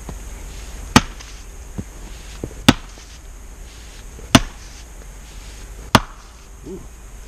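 Splitting axe chopping into a large firewood round: four sharp strikes about a second and a half apart.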